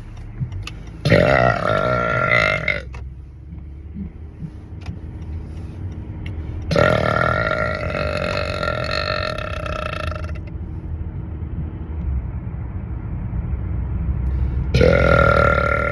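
A man burping loudly three times: a burp of about two seconds, a long one of nearly four seconds, and a third starting near the end. Each holds a fairly steady pitch. A steady low rumble runs underneath.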